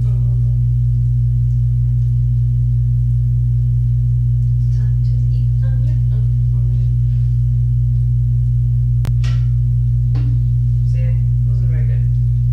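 A loud, steady low electrical hum, with faint short pitched calls that come and go over it and a single sharp click about nine seconds in.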